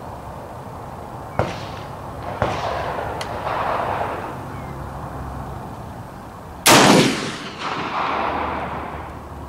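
A single loud shot from a Springfield M1A SOCOM .308 rifle about two-thirds of the way in, with a long echo dying away after it. The rifle fails to eject the spent case. Two quieter gunshots, each with its own echo, come about a second and a half and two and a half seconds in.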